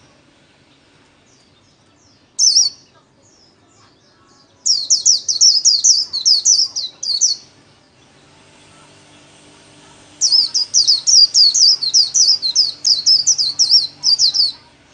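White-eye (vành khuyên) singing its rapid twittering 'líu' song: one high note, then two runs of quick, high, down-slurred notes, the second run longer.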